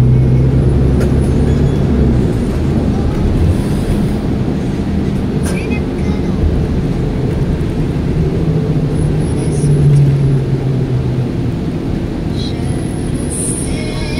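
Steady engine drone and road rumble heard from inside a moving city bus, with the engine note swelling about eight seconds in and easing off a few seconds later.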